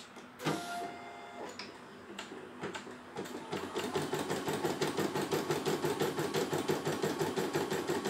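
CNY E900 computerised embroidery machine: a short beep as its button is pressed, then the needle starts stitching, picking up speed over a few seconds and settling into a fast, even stitching rhythm.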